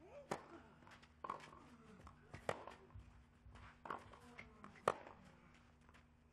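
Tennis ball struck with rackets in a rally: a serve about a third of a second in, then four more sharp strikes roughly a second apart, the hardest one about five seconds in.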